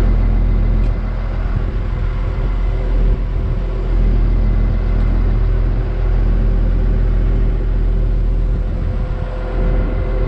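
New Holland RG140B motor grader's diesel engine running steadily, a loud, even low drone.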